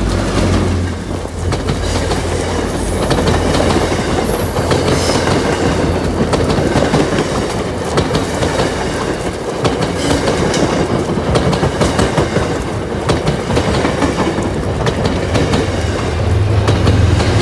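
MBTA diesel-hauled commuter train with bilevel coaches passing close by at about 40 mph: a steady loud rush of wheels on rail with clickety-clack over the rail joints.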